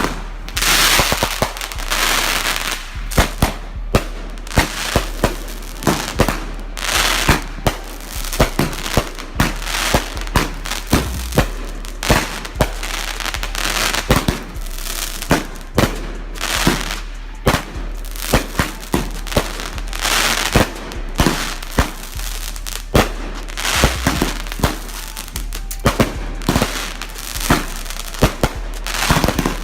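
Many fireworks going off at once: a dense, irregular stream of sharp bangs and booms mixed with patches of crackling, with no let-up.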